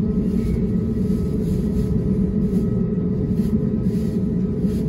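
Airliner cabin noise on the ground before takeoff: the engines' steady hum with an even low rumble, holding level throughout.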